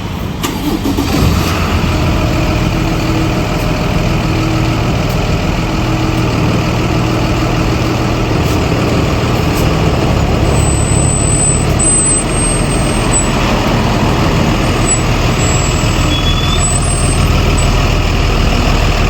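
A vehicle engine running steadily, loud and continuous.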